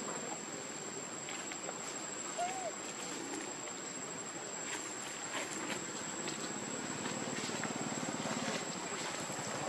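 Outdoor ambience with a steady thin high whine, scattered faint ticks and rustles among dry leaves, and one short faint squeak about two and a half seconds in. A low, evenly pulsing hum swells in over the last few seconds.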